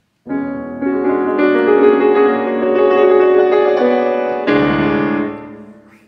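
Grand piano played: a few held chords struck one after another, the last one near the end left to fade away.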